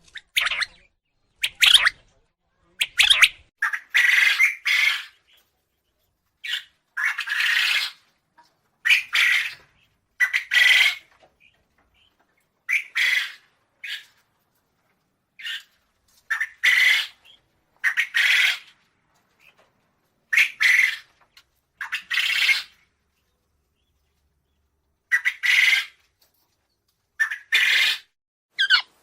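Quail calling: a string of short, harsh calls, some single and some in quick pairs or runs of three, with silent gaps of one to two seconds between them.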